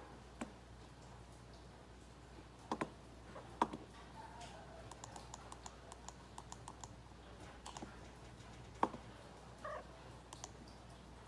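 Clicks and taps of a computer mouse and keyboard during editing: a few sharp, louder clicks among a run of lighter, quicker ticking.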